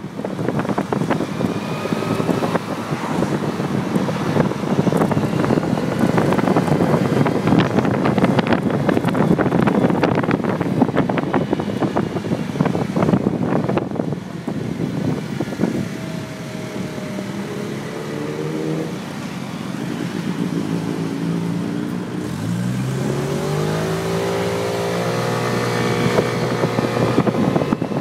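Wind buffeting a phone microphone taped to a riding SYM Symply 50cc four-stroke moped, with the engine's note under it. Past the middle the wind noise eases and the engine comes through plainly, rising quickly in pitch as it accelerates and then holding steady.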